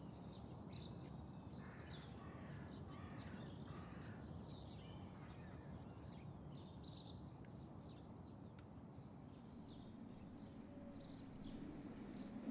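Faint birdsong: many short, quick high chirps from small birds over steady low background noise, with a low hum rising near the end.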